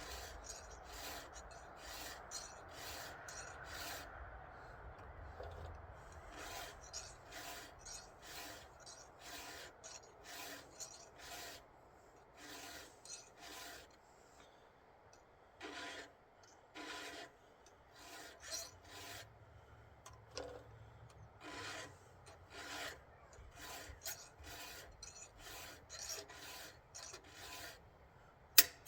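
Round chainsaw file rasping across the chain's cutters in repeated short, light strokes, in uneven runs with brief pauses: hand-sharpening the chain freehand, without a guide. A single sharp click comes just before the end.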